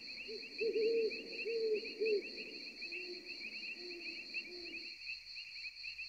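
Quiet night-forest ambience: crickets chirring steadily, with a bird giving a string of short, low hooting notes for most of the first five seconds. The notes drop to a lower pitch about halfway through.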